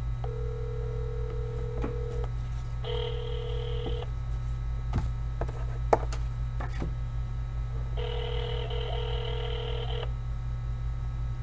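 Ringback tone of an outgoing call heard through a mobile phone's speaker. The steady tone sounds for about two seconds, again briefly around three seconds in, and for another two seconds near the end, while the call waits to be answered. A few handling clicks and a steady low hum lie underneath.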